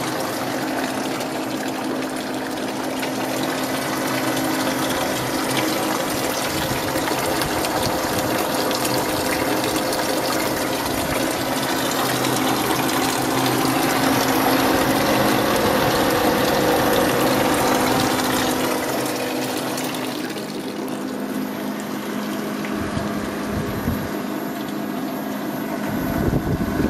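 Water from a 12-volt marine sump pump pouring and splashing down over the straw pads of an evaporative swamp cooler, with the steady hum of the cooler's 12-volt car radiator fan running alongside. The splashing hiss thins out about three-quarters of the way through.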